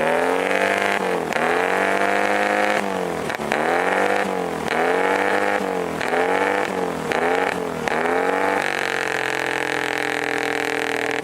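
Classic Mini engine through a loud competition exhaust, revved hard in a string of quick blips, then held steadily at high revs for the last few seconds. This is its run at a loudest-exhaust sound-meter test.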